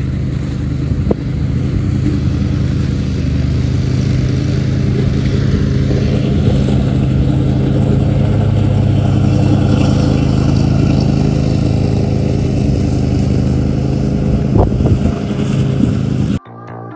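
Engine of a zero-turn riding lawn mower running steadily while mowing: a continuous low drone that cuts off suddenly near the end.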